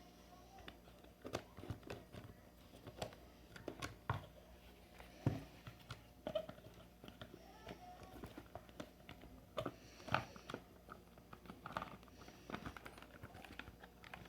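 Faint, irregular clicks and knocks of a plastic blender housing and its parts being handled and pried at during disassembly.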